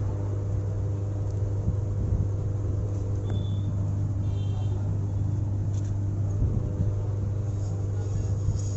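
Steady low hum of running machinery, unchanging throughout, with a few brief high chirps between about three and five seconds in.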